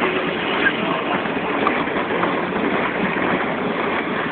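Steady rushing noise of water and wind around a small boat moving on a river.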